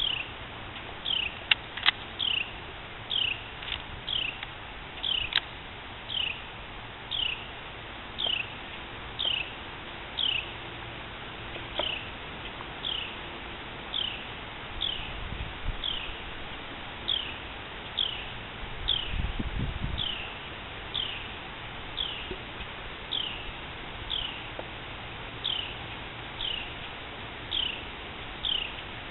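A bird calling over and over, a short falling chirp repeated about once a second. Two sharp clicks about two seconds in, and a brief low rumble later on.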